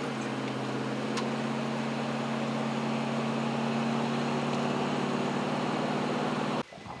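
Steady drone of a car on the move, heard from inside: a low even engine hum over road and tyre noise. It cuts off suddenly near the end.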